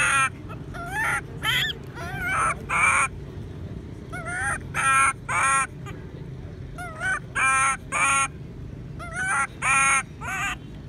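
Baby long-tailed macaque crying: loud, wavering wails, repeated in runs of two or three calls about half a second apart with short pauses between.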